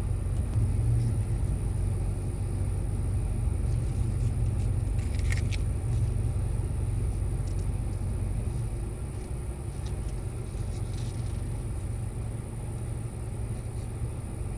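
Steady low rumble of a car, with a few faint clicks and one sharper click about five seconds in.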